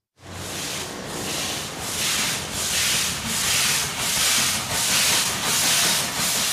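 Steam locomotive working hard, its exhaust chuffing about twice a second over a steady hiss of steam. It starts suddenly and grows louder over the first couple of seconds.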